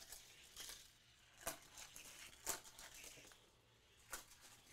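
Faint clicking and rattling of a die-cast toy car running along plastic Hot Wheels track, with several sharp clicks as it crosses track joints and pieces.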